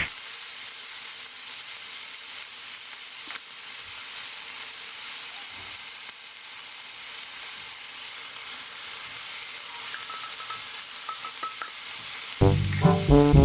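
Chopped chicken frying in hot sesame oil in a pan, with a steady sizzle. Music comes in about a second before the end.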